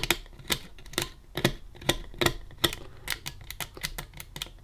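Small plastic latching switch from a Roberts RFM3 radio being worked by hand, giving repeated sharp clicks about two to three times a second as its spring-loaded pin snaps between positions.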